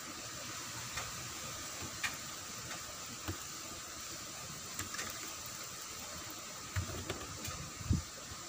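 Light clicks and soft dull bumps of boiled saba bananas being lifted from a steel pot and set down on a woven rattan basket, over a steady faint hiss.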